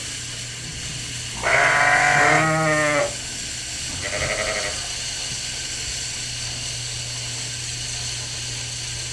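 Sheep bleating in a barn: one loud, drawn-out bleat about a second and a half in, then a shorter, fainter bleat a little later, over a steady low hum.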